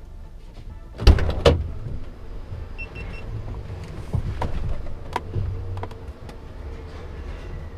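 Low steady hum from a DAF CF rigid truck, with two loud metallic bangs about a second in, then scattered knocks, rattles and a short beep.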